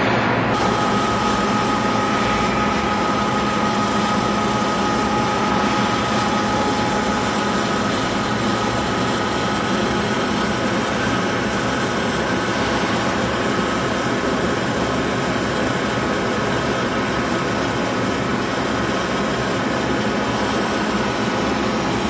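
Octagonal drum honeycomb paper machine running: a loud, steady mechanical drone with a few steady whining tones, the highest fading out about halfway through.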